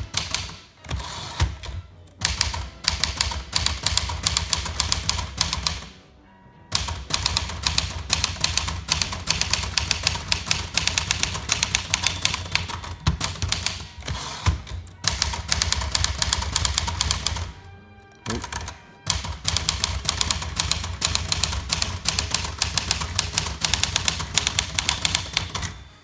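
1960 Smith Corona Galaxie manual typewriter being typed on at a fast, steady pace: a rapid run of key and typebar strikes, with two short breaks about six seconds in and again around eighteen seconds.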